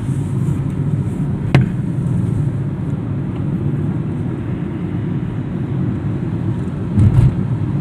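Steady low drone of a vehicle driving on a road, engine and road noise together, with a sharp click about one and a half seconds in and a short thump near the end.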